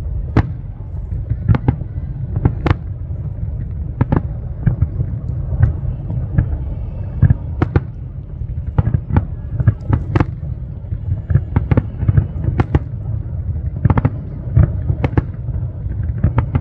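Aerial fireworks shells bursting in quick, irregular succession, about two bangs a second, over a steady low rumble.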